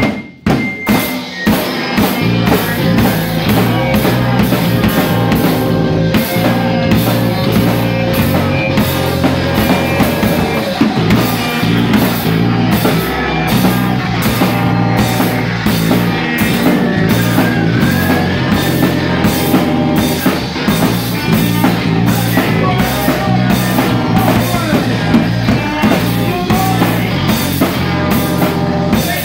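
Live rock band playing loudly, drum kit keeping a steady driving beat under sustained instrument notes. A few separate hits open it before the full band comes in about a second and a half in.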